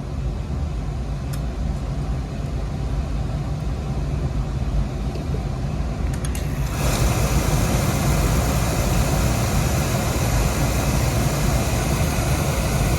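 Oil-fired boiler's burner running with a steady low roar, its fuel pump just bled of air so that it stays lit. About seven seconds in, a brighter rushing noise joins it and it grows a little louder.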